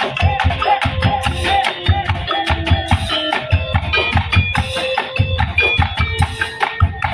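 Tongtek ensemble playing: fast, steady beating of drums and bamboo slit drums (kentongan), with a melody of short notes running over the rhythm.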